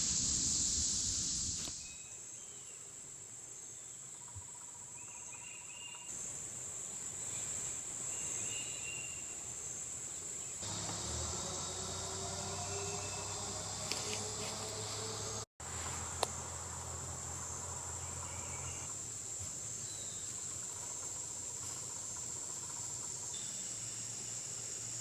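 Steady high-pitched chorus of insects such as crickets, running on without pause, with a brief full dropout of the sound about halfway through.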